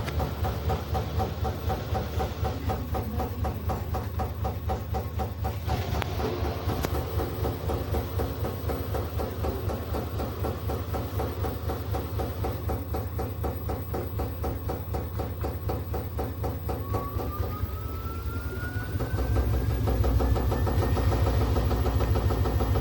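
Front-loading washing machine running with a fast rhythmic churning and a low hum. Late on, a motor whine rises steadily in pitch as the drum speeds up, and the machine grows louder near the end.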